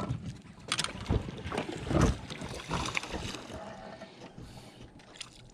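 Irregular knocks and bumps on a fishing boat, the loudest a dull thump about two seconds in, with some wind on the microphone.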